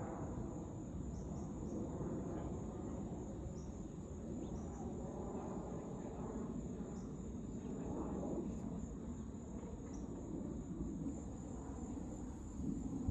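Crickets giving a steady high trill over the low, distant rumble of a jet airliner passing high overhead.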